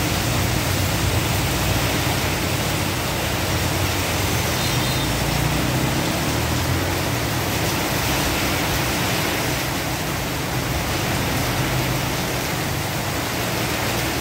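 Heavy rain pouring onto a flooded street, a steady hiss. Motor scooters riding through the water add a low hum near the start and again around the middle.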